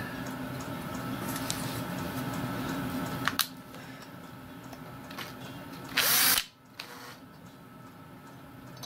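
Cordless drill running slowly for about three and a half seconds, turning the valve spindle to run an adjusting nut down its thread, stopping with a click; about six seconds in comes one short, louder burst.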